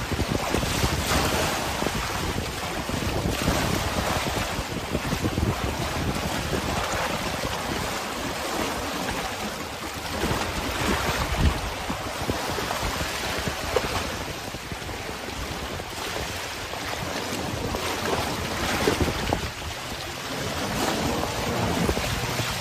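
Wind buffeting the microphone in gusts over sea waves washing close by.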